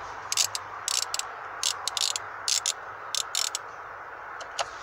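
Ratchet with a 10 mm socket clicking as it is swung back and forth to undo a bolt: short sharp clicks in quick runs of two or three, with a few fainter ones near the end.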